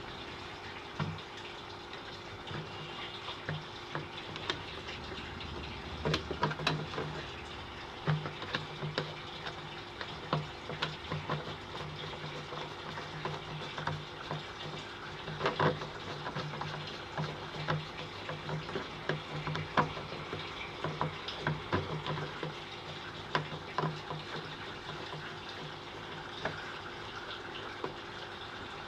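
A plastic tank connector being fitted through the wall of a plastic drum by hand, its lock nut handled and threaded on: scattered clicks, knocks and scrapes of plastic on plastic, over a steady rush like running water.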